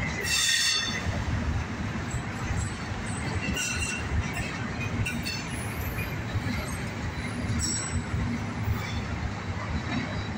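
Autorack freight cars rolling past at close range, the wheels on the rails making a steady rumble. Steel wheels squeal high-pitched briefly just after the start, and faintly twice more later.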